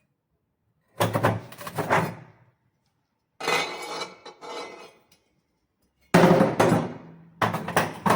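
Cast-iron fire grate being handled inside a steel stove's firebox: four bursts of metal clanks and knocks, a couple of seconds apart, each with a short ring.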